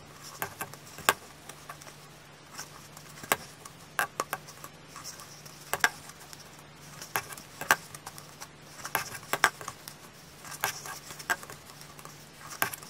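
Irregular sharp clicks and light tapping of a metal crochet hook against a clear plastic takeout cup as single crochet stitches are worked through holes punched around its rim.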